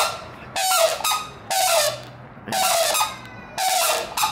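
An animal giving loud, harsh squawking calls over and over, about one call a second, each with a short falling note.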